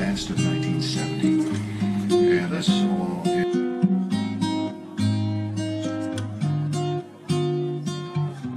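Background music led by a strummed acoustic guitar, with a steady run of chords.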